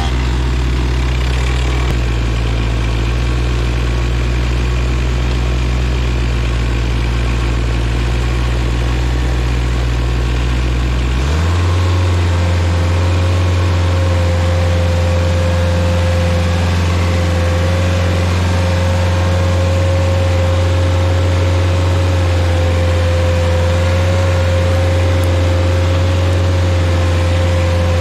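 Rayco RG50 stump grinder's engine running steadily. About eleven seconds in, its note shifts up and grows stronger, and a steady high whine joins it.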